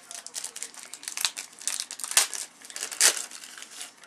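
Cellophane wrapper of a trading-card cello pack crinkling and tearing as it is pulled open and handled, a rapid run of crackles with two louder ones about two and three seconds in.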